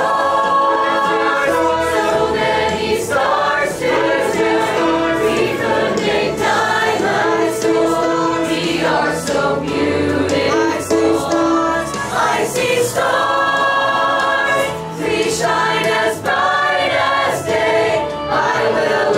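A group of mixed voices singing in chorus over an instrumental backing with a steady beat.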